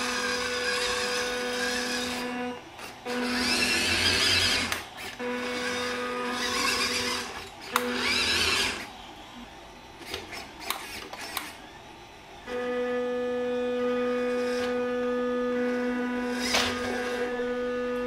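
WPL B36 Ural RC truck's electric drive motor and gearbox whining in stop-start bursts as the truck is driven on and off; the longest run starts about two thirds of the way through. In a quieter stretch around the middle there are only a few light clicks.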